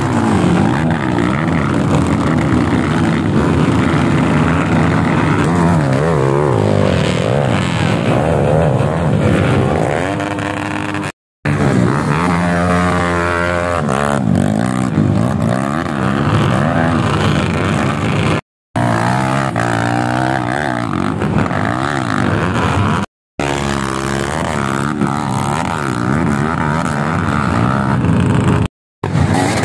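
Trail motorcycle engines revving hard, their pitch climbing and falling as the bikes labour up a steep hill climb. The sound comes as several clips cut together, with brief sudden silences between them.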